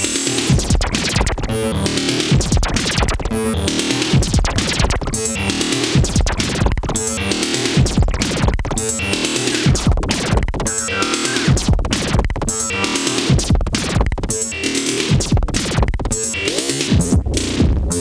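Eurorack modular synthesizer patch playing a busy electronic beat, with low pitch-dropping kick-like thumps about two to three times a second. The hits run through very short delays from a Joranalogue Delay 1, modulated by a fast LFO whose amount is stepped by a Turing Machine random source, which gives them a shifting flanged, metallic colour.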